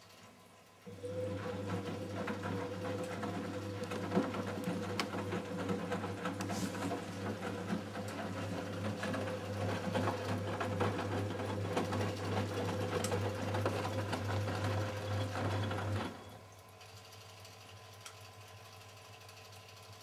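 1987 Siemens Siwamat 285 washing machine's drum motor starting about a second in and turning the sudsy load with a steady hum and a whine on top for about fifteen seconds, then stopping: one turn of the drum's stop-and-go tumbling during the wash.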